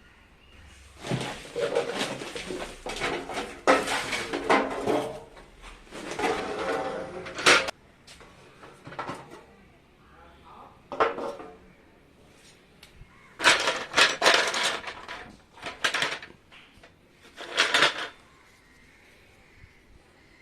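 Hard objects clattering and scraping as they are handled, in irregular bursts: a long run in the first half, then shorter bursts with quiet gaps between.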